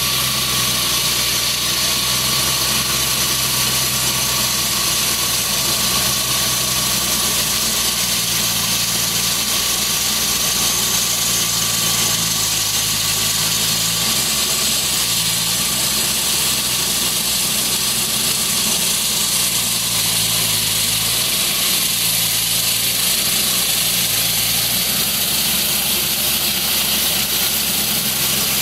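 Engine of a road-work machine running steadily, with a constant loud hiss over it. Its low engine note swells and drops a few times in the second half.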